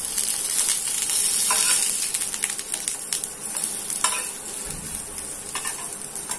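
Potato cutlets shallow-frying in oil on a tawa over raised gas, with a steady sizzle that is loudest in the first two seconds and then eases. A spatula scrapes and clicks on the pan a few times as the cutlets are turned.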